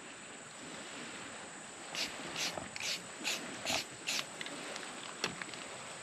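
Six short hissing, scratchy bursts about 0.4 s apart, starting about two seconds in, as a camouflage stencil is worked onto the backpack's fabric, followed by a few light clicks. A steady high drone of insects sits underneath.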